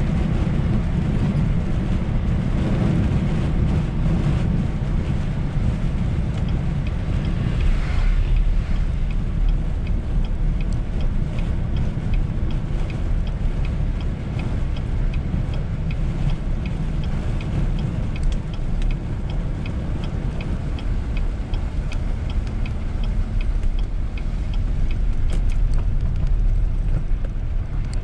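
Road noise inside a moving car on a snow-covered highway: a steady low rumble of tyres and engine. A light, regular ticking runs through much of the middle.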